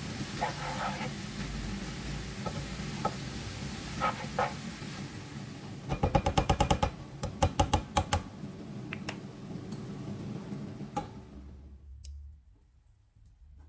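Noodles and vegetables sizzling in a frying pan as they are tossed, with single knocks of the utensil on the pan and a quick run of clicks and knocks about six to eight seconds in. The sizzle drops away near the end.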